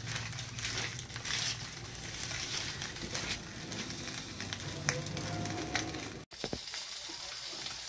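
Fish wrapped in banana leaf sizzling in a wok over a wood-fired clay stove, with the fire crackling in many short pops. The pan is uncovered and the fish is being left to cook through. The sound drops out for an instant about six seconds in.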